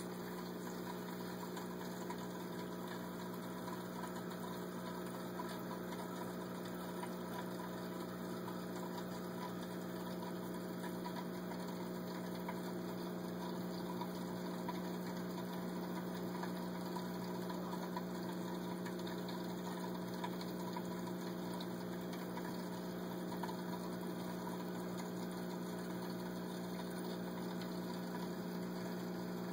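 Aquarium pump humming steadily, with water bubbling in the tank.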